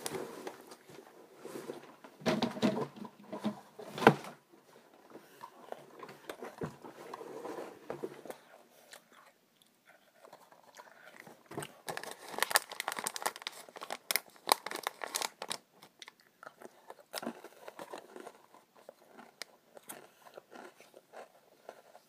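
A person chewing and crunching Koala's March biscuits, small crisp cocoa biscuit shells with a chocolate-banana filling, close to the microphone. Runs of louder crunchy bites come a couple of seconds in and again about halfway, with quieter chewing between.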